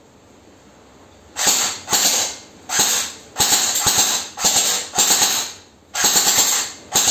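Snow Wolf MP18 airsoft electric gun (AEG) firing plastic BBs in short full-auto bursts, starting about a second and a half in: about seven or eight quick rattling bursts with brief pauses between them, the gearbox cycling rapidly in each.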